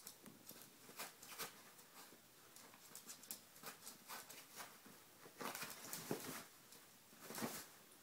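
Chihuahua humping a pillow: faint, irregular rustling and scuffing of fabric, with brief flurries about two thirds of the way through.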